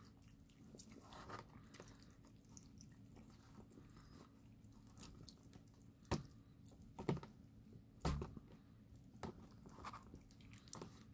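Kittens chewing raw liver, quiet and wet, with a few sharp clicks and taps scattered through, the loudest about six, seven and eight seconds in.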